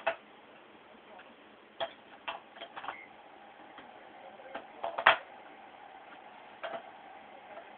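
Small plastic toy pieces clicking and knocking together in a toddler's hands: scattered, irregular clacks, the loudest cluster about five seconds in.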